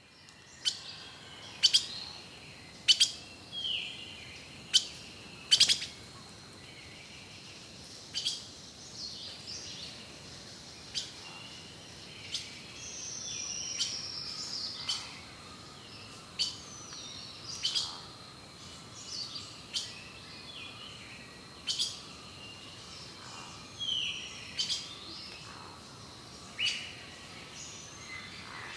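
Rainforest birds calling: sharp chirps every second or two, loudest in the first six seconds, and falling whistled notes, over a faint steady high-pitched tone.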